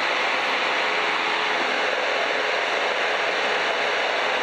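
Steady in-flight noise of a Piper PA-12 Super Cruiser light airplane: engine and rushing air blend into one even rush, with no change in pitch or level.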